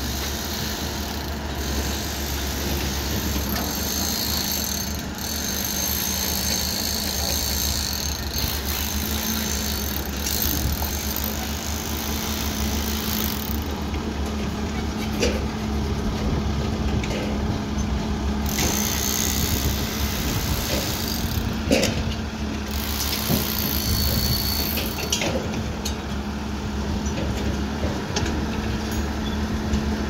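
Diesel engines of a Caterpillar tracked excavator and a small crawler bulldozer running steadily under load while moving soil, with a low hum and a held tone. A few sharp knocks come through, the loudest about two-thirds of the way in.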